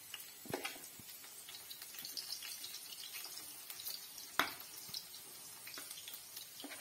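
Okra sizzling and crackling in hot oil in a steel kadai, with scattered small pops. One sharp click about four and a half seconds in.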